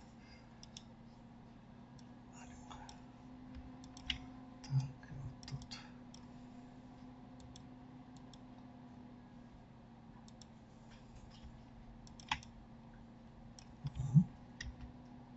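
Scattered computer mouse and keyboard clicks, a few in a cluster about four to six seconds in and the loudest near the end, over a low steady hum.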